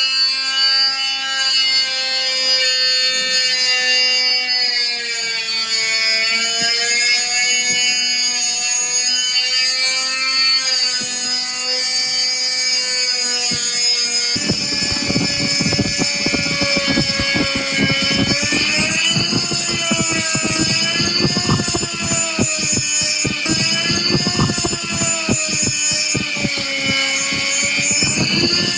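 Small high-speed mini grinder motor whining steadily while drilling a steel plate, its pitch wavering under load. About halfway through, a harsh grating rattle joins the whine as the bit bites harder into the steel.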